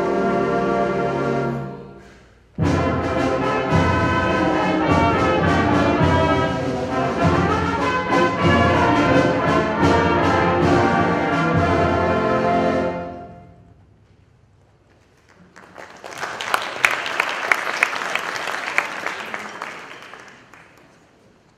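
A full wind band of brass and woodwinds holds a chord that cuts off, then comes back in loudly after a short break and plays on until the music dies away about thirteen seconds in. After a brief pause an audience applauds for several seconds.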